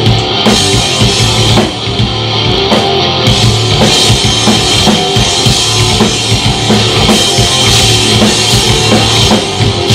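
Loud live rock band playing an instrumental passage with no singing: electric guitars and a full drum kit, bass drum and snare hits driving a fast, dense beat.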